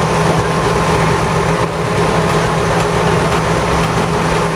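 Heavy diesel engine of streetcar track-construction machinery running steadily, a constant loud drone with an even low hum.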